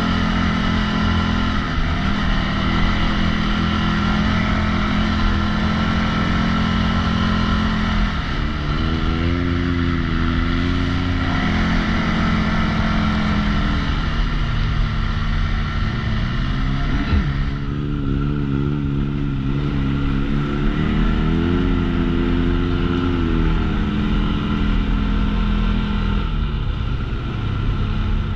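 2023 CFMOTO CForce 625 ATV's single-cylinder engine running under way, its pitch rising and falling several times as the throttle is opened and eased off. One brief knock about two-thirds of the way through.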